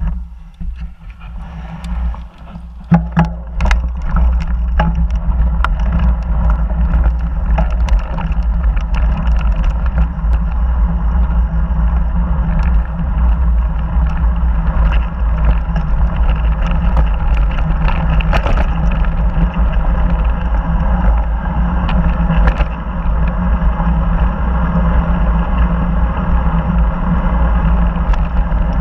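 Mountain bike rolling downhill on a dirt and gravel trail, heard through an action camera: a steady wind rumble on the microphone with tyre crunch and rattle, rising out of quiet over the first couple of seconds. Sharp clicks from stones and the bike's parts come through, most densely a few seconds in.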